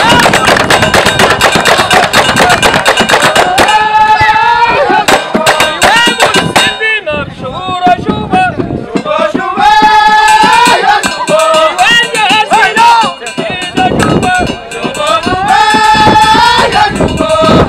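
Moroccan Hamadcha ritual music: a loud reedy melody of long held, bending notes, most likely a ghaita, over dense, fast drum and hand percussion. The melody thins briefly twice, once about seven seconds in and again past thirteen seconds, then returns.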